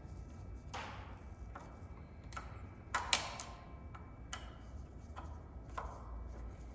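Scattered light metallic clicks and clinks, about eight over several seconds with the sharpest pair about three seconds in, from the handlebar stem bolts and tool being handled as the bolts are started.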